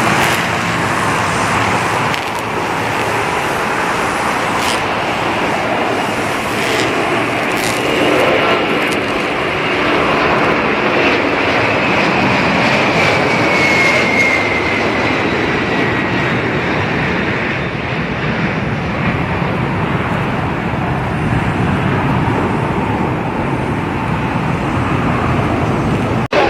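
Jet airliner engine noise, loud and steady, with a high whine that slides slowly down in pitch partway through as the aircraft passes.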